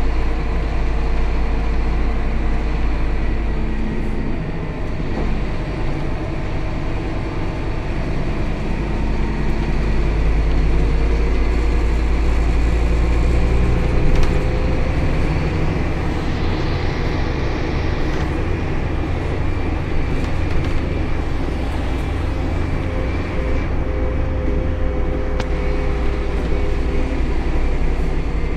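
Scania K280 city bus under way, heard from inside the passenger cabin: a heavy low rumble with the diesel engine's drone slowly rising and falling in pitch as the bus drives.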